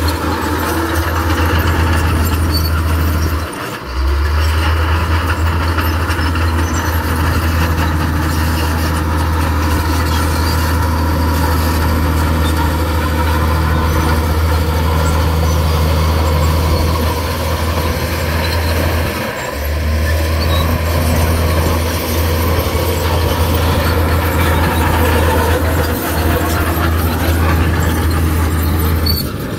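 Komatsu bulldozer's diesel engine running steadily under work, with a strong low drone and metallic clatter and squeal over it. It drops out briefly twice, about 4 and 19 seconds in.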